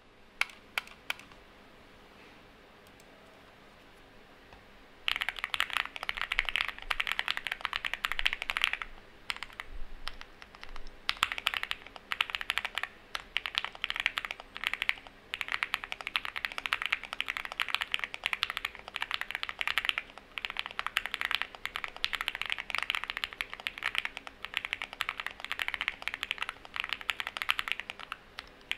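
Owlab Spring Alice-layout mechanical keyboard, with stock TTC Wild switches, a polycarbonate plate, leaf-spring mounting and XMI Handarbeige keycaps, being typed on. A few lone keystrokes come first, then dense, fast typing clatter starts about five seconds in and keeps going, thinning briefly once.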